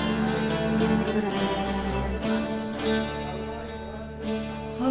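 Cypriot folk ensemble playing an instrumental passage between sung verses: plucked laouto over sustained viola and bass lines.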